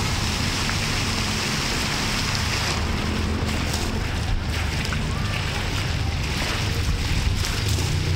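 Steady rushing noise with a low rumble throughout: wind buffeting the phone's microphone over city background noise.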